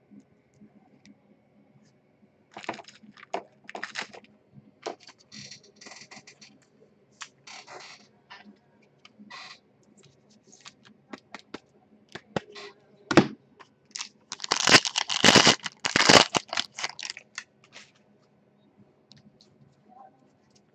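Trading cards and packaging being handled, with scattered scrapes and rustles and a sharp click. Then comes a dense burst of crinkling and tearing for about two seconds, the loudest sound: a foil-wrapped trading card pack being torn open.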